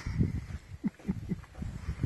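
Young bull moose licking a truck's body, tongues rubbing against it in irregular strokes with low knocks and a few short squeaks about a second in. The owner supposes they are after road salt on the truck.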